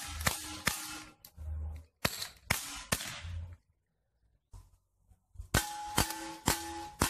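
Taurus 24/7 airsoft replica pistol firing 6 mm BBs in sharp cracks, about two shots a second. A pause of about two seconds in the middle holds only a couple of faint clicks. Firing then resumes at a steady rate.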